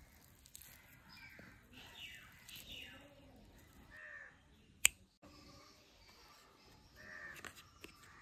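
Crows cawing repeatedly, with one sharp click about five seconds in.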